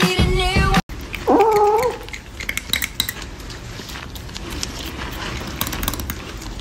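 A cat meows once, a short rising-then-falling call, then chews noisily: a long run of small irregular clicks and smacks from a cat eating corn on the cob.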